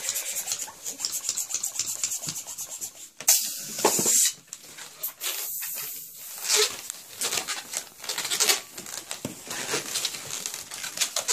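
Latex modelling balloons being twisted and handled, a run of short squeaky, scratchy rubbing strokes, with a louder hissing scrape about three seconds in lasting about a second.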